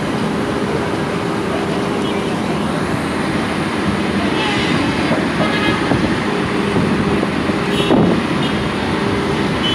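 Road traffic running past, with a steady engine hum under it and a brief, louder sound that swoops down and back up in pitch about eight seconds in.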